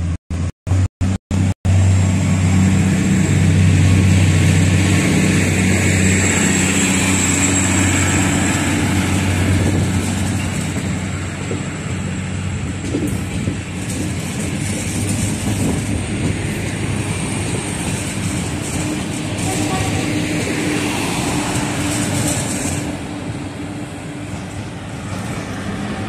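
A passenger train running into the station: a steady low engine drone with a thin high whine over it. It starts after a brief, rapidly chopped stutter of sound at the very beginning.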